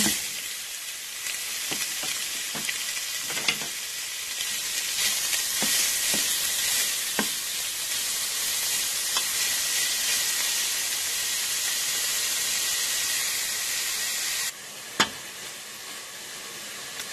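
Ground beef sizzling as it fries in a hot stainless steel pot with chopped onion, stirred with a wooden spatula that now and then knocks against the pot. The sizzle drops suddenly to a quieter level near the end.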